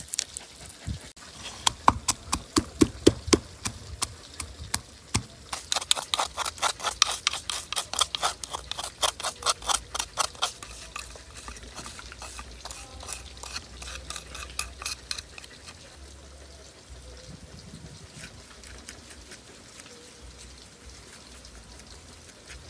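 Garlic and chilies pounded in a small wooden mortar: a long run of quick sharp knocks, several a second, that stops about fifteen seconds in. After that, a faint steady sizzle of fish frying in oil.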